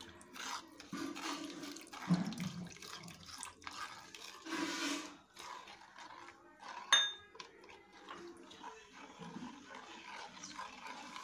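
Water poured slowly from a glass into gelatin powder in a plastic bowl and stirred in with a plastic spoon, with irregular scraping and light knocks. A sharp ringing clink about seven seconds in.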